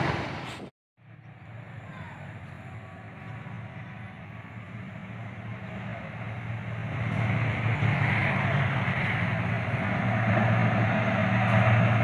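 Train sound that cuts off just under a second in; then an approaching multiple-unit passenger train, a low steady hum with rail noise, growing gradually louder as it nears.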